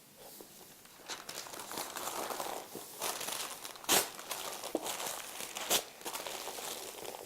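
Packing wrap crinkling and rustling as it is handled around grandfather-clock weights, with two sharper, louder crackles partway through.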